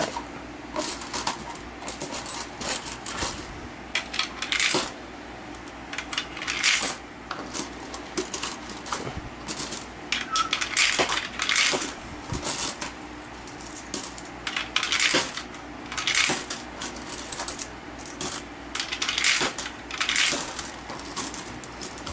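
10-peso coins fed one at a time into an Allan universal coin acceptor while it is being calibrated for the 10-peso coin, each clinking through the mechanism and down into a paper box beneath. Repeated metallic clinks come about one every second or two.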